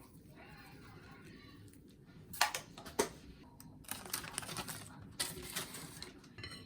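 Household handling sounds: two sharp clicks about half a second apart, then two bursts of rustling noise.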